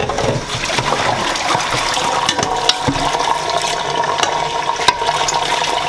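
Kitchen faucet running water into a large stainless steel stockpot as it is rinsed and filled, a steady pour with a ringing tone from the pot. A few sharp clicks fall now and then.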